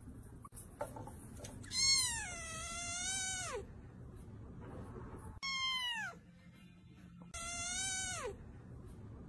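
A cat meowing three times: a long drawn-out meow, a short one, then another, each dropping in pitch at the end.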